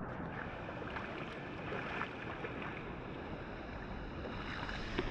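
Shallow river water running steadily over a stony bed, close to the microphone.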